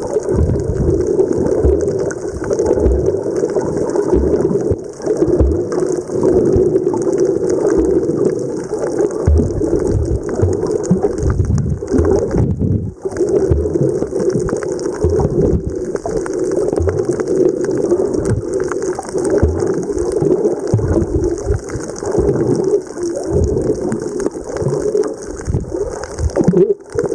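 Muffled water rushing and sloshing as heard by a camera held underwater, with irregular low thumps throughout.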